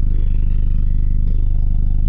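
Four 18-inch subwoofers in a quarter-wave T-line enclosure playing a loud, steady deep bass note, heard from inside the vehicle's cabin.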